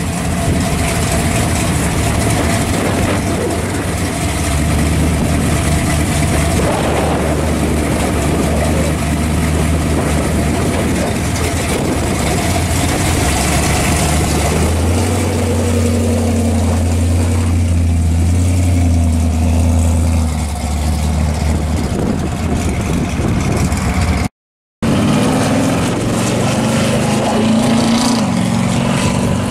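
Supercharged V8 of a 1974 Camaro Type LT pro street car running loud at idle, the low engine note swelling for a few seconds midway as it moves off at low speed.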